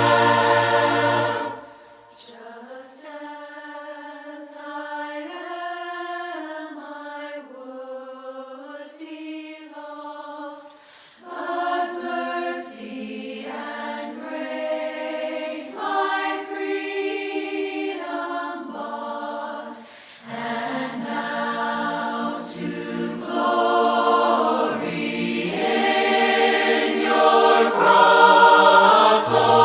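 A cappella congregational-style group singing a hymn in parts, with no instruments. It starts quieter and thinner, then swells fuller and louder toward the end.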